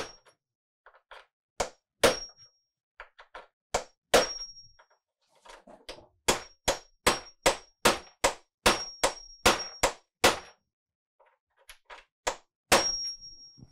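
Claw hammer tapping a small metal setting tool to drive threaded inserts sub-flush into a plywood panel: sharp metallic taps, some leaving a short high ring. A few scattered strikes come first, then a quick run of about a dozen blows at roughly three a second, then two more near the end.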